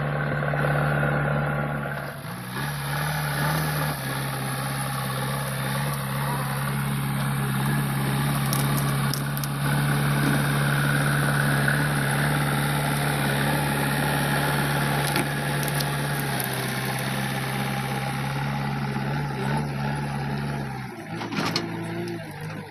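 JCB 3DX backhoe loader's diesel engine running steadily under load as the front loader bucket pushes through soil and brush, with a few brief clicks. The engine note drops near the end.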